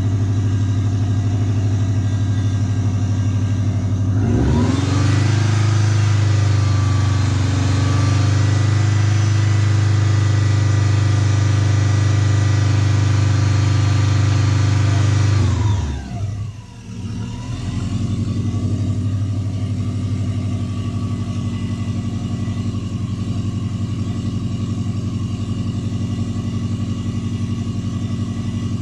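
Subaru Impreza flat-four engine running after sitting unused for four years. About four seconds in it revs up and holds at raised revs for roughly eleven seconds, then drops back with a brief dip and settles into a steady idle.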